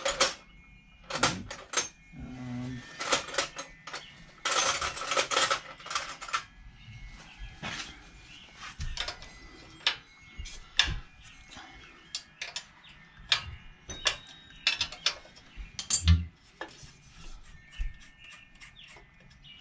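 Hand tools working on metal: irregular metallic clinks and clicks with a few short rasping runs, as the stock exhaust bolts on a Hisun 196cc mini-bike engine are undone with a 13 mm socket.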